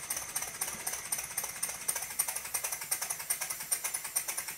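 Cotswold Heritage Gryphon twin-cylinder model steam engine running on compressed air: a fast, even beat of exhaust puffs with a light mechanical clatter.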